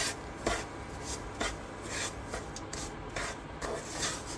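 Wooden spatula scraping and stirring semolina roasting in ghee in a nonstick kadhai, in repeated rough strokes about two a second.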